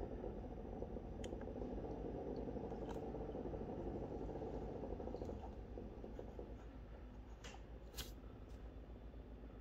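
EcoTech Marine VorTech MP10 QuietDrive aquarium circulation pump running with a steady whir, which dies down about halfway through as the pump is slowed or stopped. Plastic clicks of buttons being pressed on its controller come a handful of times, the loudest near the end.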